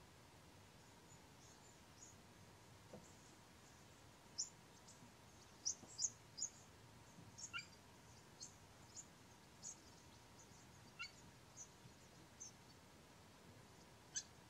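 Bird chirps: about a dozen short, high-pitched calls, scattered irregularly, over faint background hiss.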